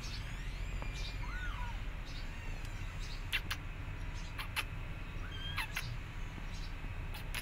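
Kitten meowing a few times, thin cries that rise and fall in pitch, with several short sharp clicks in between, over a steady low background rumble.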